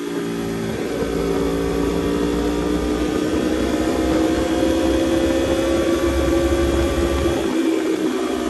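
2016 Aprilia RSV4 RR's V4 engine pulling the bike along at speed, with a rushing noise over it. The engine note changes briefly near the start, then holds and sinks slowly in pitch as the revs ease off.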